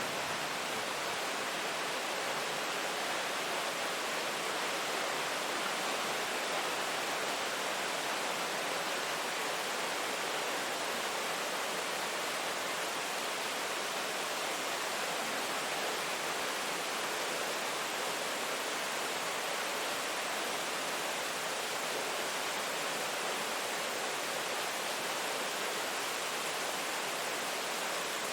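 Steady rain, an even hiss with no separate drops or other sounds standing out.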